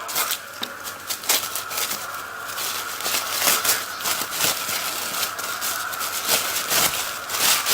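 Parcel packaging being handled and unwrapped around the locks: irregular rustling and crinkling, with a faint steady high whine underneath.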